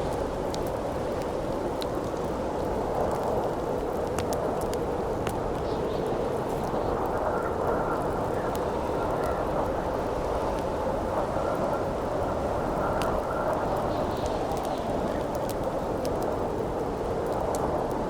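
Strong wind howling steadily, with a faint higher whistle that comes and goes, while a campfire crackles in small scattered pops over it.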